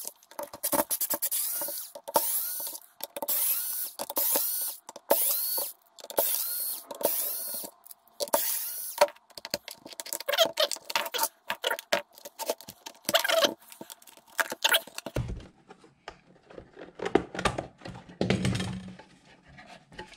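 Tools working on the end cap of a Bosch rear-carrier e-bike battery's plastic housing: a regular run of short rasping bursts, about two a second, each with a rising squeak, for the first nine seconds. Then irregular clicks and scrapes, and duller plastic knocks near the end as the housing is worked open.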